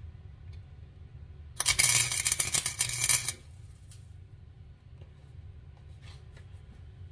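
Arc welder laying a short tack weld on a steel nut on threaded rod: a loud, dense crackle lasting under two seconds, starting about a second and a half in and stopping sharply. A low steady hum runs underneath.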